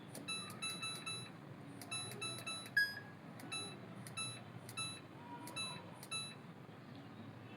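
Electronic beeps from a Samsung front-load washing machine's control panel: short identical beeps in quick runs of three or four, repeating every second or so, with one different, higher beep about three seconds in, as buttons are pressed to enter the machine's test mode.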